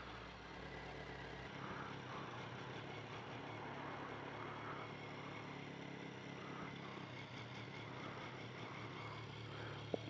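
Faint, steady low hum of a vehicle engine running at idle, under light background noise; the deepest part of the hum drops out about a second and a half in.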